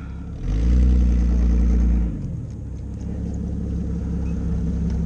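A vehicle's engine heard from on board as it reverses: it revs up for about a second and a half shortly after the start, then drops back to a steady low running.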